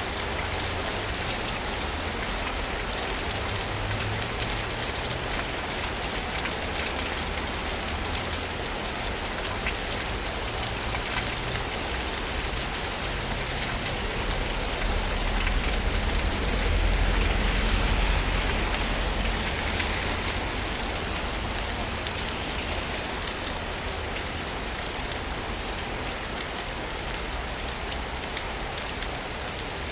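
Steady rain falling, an even hiss of drops, with a low rumble that swells and fades about halfway through.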